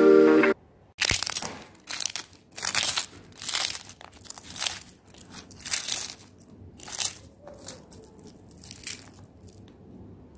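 Crisp pappadam being crushed by hand into rice, a string of irregular crackling crunches that thin out and grow fainter near the end.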